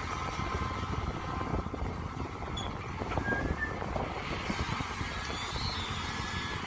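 Mini excavator engine running steadily, with a few light knocks around the middle.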